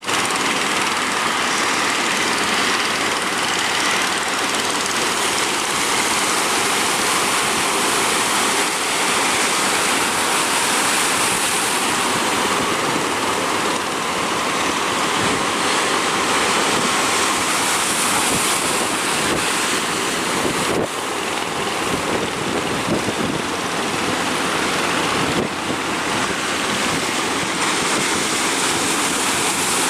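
Large ocean surf breaking in a steady, loud rush, with wind buffeting the microphone.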